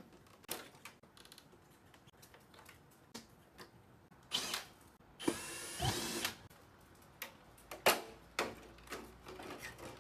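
Cordless electric screwdriver whirring for about a second a little past the middle, amid scattered clicks and knocks of screws and plastic casing being handled as the cover of an air conditioner's indoor unit is taken off.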